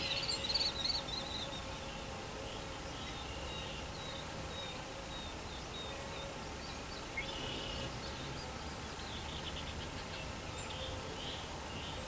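Outdoor ambience of birds chirping: a run of high, wavering chirps in the first second or so, then fainter scattered chirps over a steady background of insects. A single faint tick about seven seconds in.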